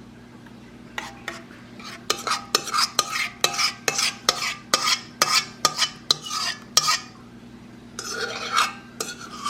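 Sweet potato pie filling being stirred by hand in a mixing bowl: a utensil knocks against the bowl about three times a second, then scrapes along it near the end.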